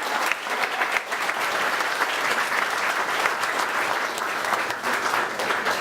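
Wedding guests applauding and cheering after the couple's first kiss: dense, steady clapping from a crowd.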